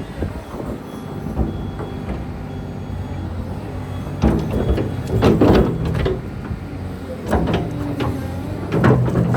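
Hyundai Robex 300 LC-9A excavator running, its diesel engine a steady drone that grows louder about four seconds in as the machine works. Over it come clusters of sharp clanks from the working machine, about four seconds in, again near seven seconds and just before the end.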